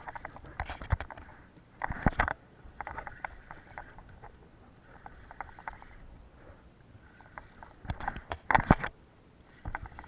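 Small clicks, taps and water patter on a drifting kayak, with two louder bursts of knocking, about two seconds in and again about eight and a half seconds in.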